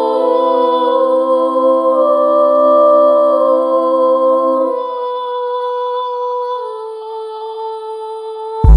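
Music: a soft passage of long held chords with no beat, its lower notes dropping out about halfway through and the chord shifting later on. A loud electronic dance beat kicks in right at the end.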